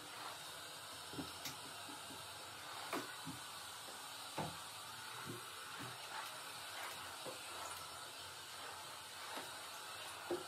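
About ten light knocks and clicks, spread unevenly over a steady faint hiss: household items being handled.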